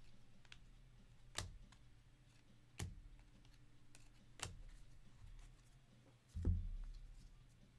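Trading cards handled and flipped through by hand, giving three sharp snaps about a second and a half apart, then a louder dull thump about six and a half seconds in.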